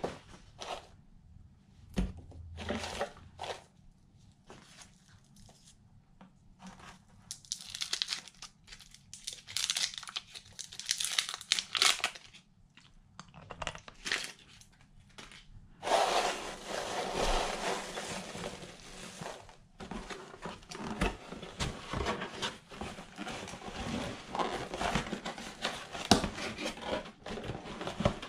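Paper packing rustling and crinkling as hands dig through shredded paper filler and unwrap tissue paper in a cardboard box. It comes in short bursts with pauses at first, then runs almost without a break from about halfway.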